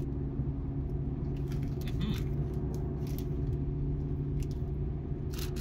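Steady engine and road drone heard inside a moving car's cabin. A couple of short crunches come about two seconds in and again near the end, from someone chewing crunchy corn snacks.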